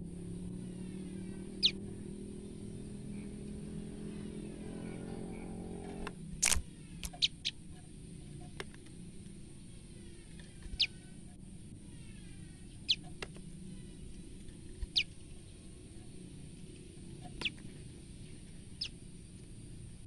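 Female common tailorbird giving sharp single chirps, each a quick downward-sweeping note, about nine in all at irregular intervals, three of them close together a little after six seconds in. These are her fear calls. A low drone under the first six seconds stops abruptly.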